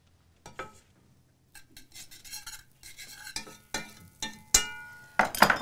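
Table knife scraping butter off a plate and knocking it against a metal frying pan: a run of clinks and scrapes, some with a brief metallic ring, the loudest knocks coming in the last second.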